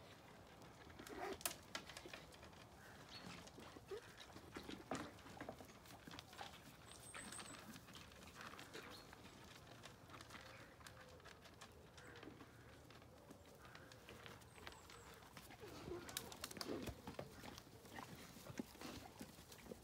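Alpacas feeding at a bucket and hay feeder, faint: scattered small clicks and rustles from muzzles and feed, with a soft low call or hum or two near the end.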